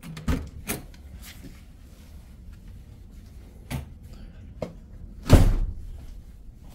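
Clicks and knocks of a front door being handled and opened, with one louder thump about five seconds in.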